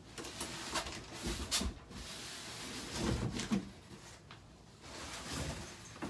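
Cardboard shipping box being opened and its packing lifted out: scraping and rustling of cardboard and packing material, with several knocks.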